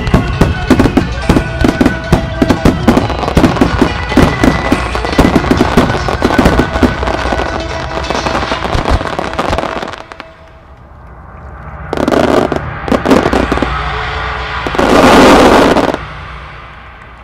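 A rapid barrage of aerial firework shells bursting, many sharp reports a second for about ten seconds, then stopping suddenly. After it come two spells of crowd applause and cheering, the second louder.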